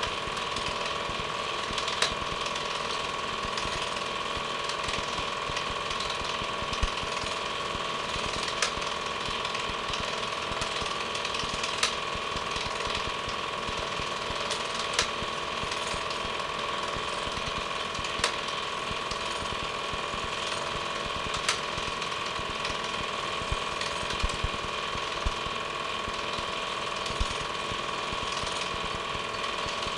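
Film projector running: a steady mechanical whirr with a fast clatter from the film transport, and a sharper click every few seconds.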